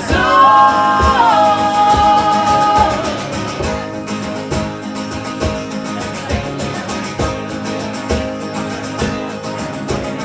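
Live singing with acoustic guitar: a long sung note that steps down in pitch and ends about three seconds in, then strummed acoustic guitar carries on.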